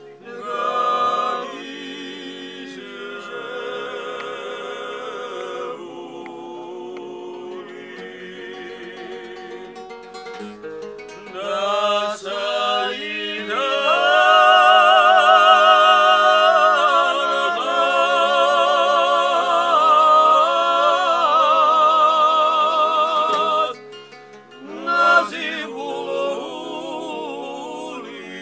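Several men singing a song together to a strummed acoustic guitar, their voices wavering with vibrato. The singing swells louder about halfway through, breaks off briefly near the end, then comes back.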